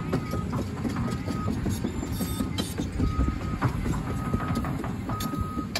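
Caterpillar 330 excavator tracking across dirt: its diesel engine runs under a constant clatter of steel tracks, and its travel alarm beeps about once a second.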